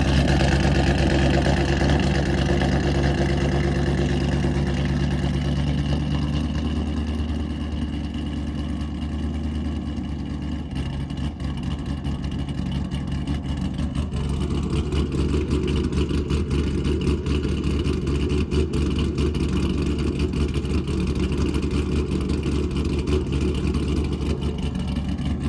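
Chevrolet Corvette C7 Grand Sport's 6.2-litre LT1 V8 running, with its pitch shifting up about halfway through. The engine is misfiring, which the owner later traces to cylinder 7.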